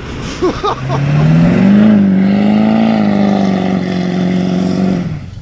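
Engine revving up and holding at a steady high speed for several seconds, then cutting off abruptly.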